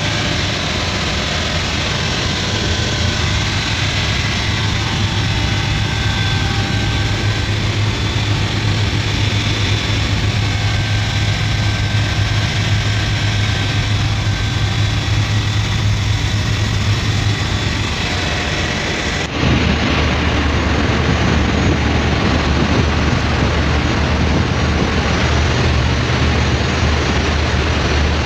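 Steady, loud drone of a cargo ship's engine room with its diesel engines running. About two-thirds of the way through, the sound changes abruptly to a louder, rougher, deeper hum.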